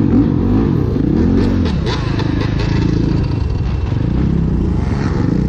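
Motorcycle engine running on the move, its pitch rising and falling as the revs change, over a steady low rumble.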